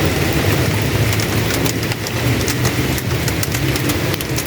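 Heavy rain falling steadily: a dense hiss with many sharp individual drop ticks, over a steady low rumble.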